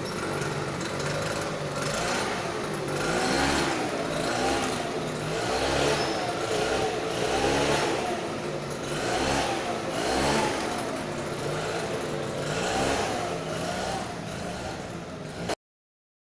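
A small engine revving up and down over and over, about once a second, then cutting off abruptly near the end.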